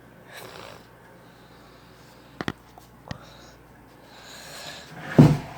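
Quiet room with a faint low hum, broken by a couple of sharp clicks around the middle and breathing into the microphone. The loudest sound is a heavy breath near the end.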